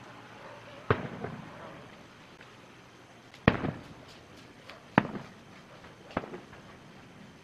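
Fireworks display: aerial shells bursting with four sharp booms spread a second or more apart, each followed by a short echo, with a few fainter pops in between.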